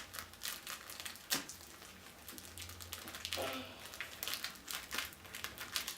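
Plastic wrapping on a magazine pack crinkling as it is cut open with scissors: irregular small snips and crackles.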